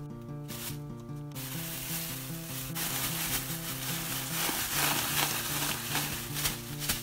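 Thin plastic bag crinkling and rustling as hands knead chicken with marinade paste inside it. It starts about a second in and gets louder and busier near the end, over a steady background music track.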